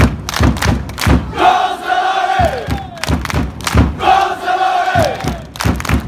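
Football supporters' crowd chanting in unison while clapping in rhythm, about three claps a second. A sung line with a long held note that falls off at its end comes twice.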